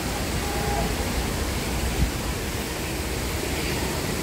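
Steady rushing noise, even across the whole range, with a low rumble beneath it and a single thump about two seconds in.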